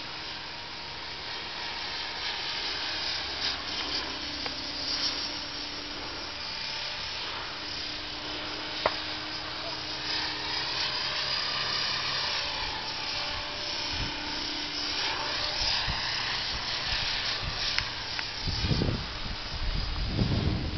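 Blade 550X electric RC helicopter flying high overhead, its rotor and motor whine sweeping up and down in pitch as it manoeuvres, with low rumbles in the last few seconds.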